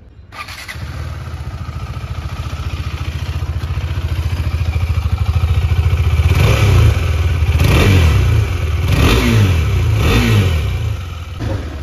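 KTM 390 Adventure's single-cylinder engine cranked and catching at once, then idling steadily. From about halfway in it is blipped several times with the throttle, each rev rising and falling back.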